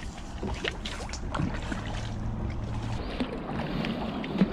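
A kayak being paddled: paddle strokes dipping and splashing in calm water, with scattered small clicks and knocks over a low, steady rumble.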